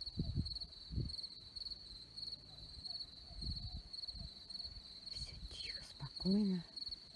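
Crickets chirping steadily in a regular pulsing rhythm. Low thumps and rumbles come and go underneath. Near the end there is a short, loud, low voice-like hum.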